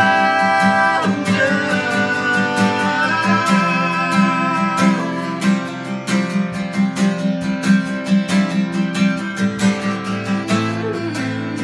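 Acoustic guitar strummed in a steady rhythm, with a man and a woman singing a worship song over the first few seconds; after that the guitar carries on mostly alone.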